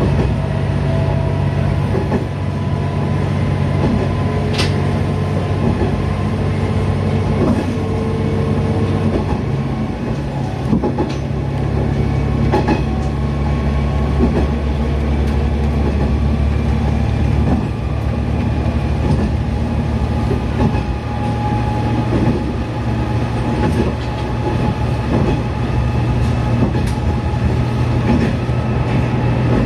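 Niigata Transys NDC-series diesel railcar running along the line, heard from on board: a steady low diesel engine drone whose note shifts twice, once about ten seconds in and again a little past halfway, with scattered wheel clicks over the rails.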